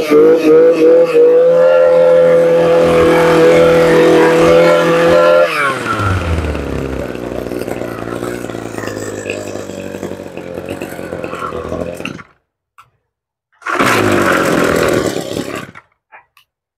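Kioritz 27cc two-stroke brush cutter engine held at high revs, then dropping to idle about five and a half seconds in. It idles for several seconds and then cuts off suddenly. A brief loud noise of about two seconds comes a little after.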